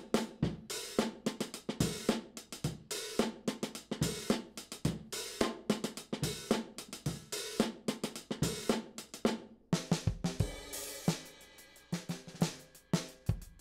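Sampled acoustic drum kit from Premier Sound Factory's Drum Tree library playing a demo groove: kick, snare and hi-hat in a steady beat. A cymbal crash and heavy low hits come in about ten seconds in.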